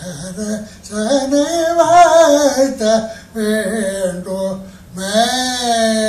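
A voice singing a melody in several phrases, with wavering, ornamented notes and a long held note near the end.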